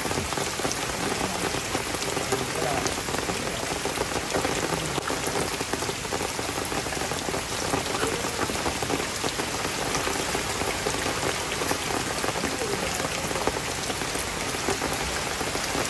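Heavy rain falling steadily, a continuous hiss dotted with many small sharp drop hits.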